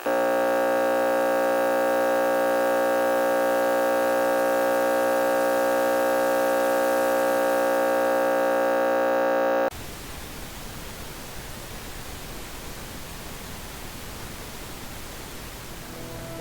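Broadcast sign-off: a steady, buzzy electronic tone at one unchanging pitch for about ten seconds, which cuts off suddenly and gives way to steady static hiss, as of a channel gone off the air.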